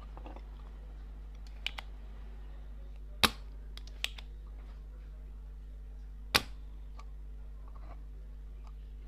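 A few sharp clicks and knocks from a soldering iron and the plastic speaker housing being handled on a wooden bench, the two loudest about three and six seconds in, over a steady low electrical hum.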